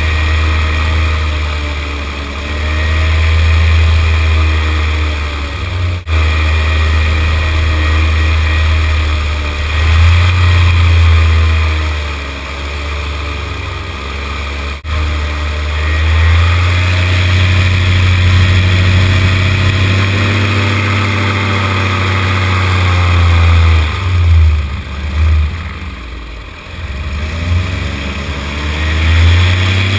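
Paramotor engine and propeller running steadily in flight. The pitch sags and recovers a few times as the throttle changes, with the deepest dip and quietest stretch near the end.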